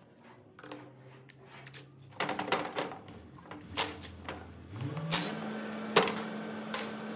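Metal clinks and clanks of tools and hydraulic pump parts being handled during dismantling, over a steady machine hum that rises in pitch about five seconds in.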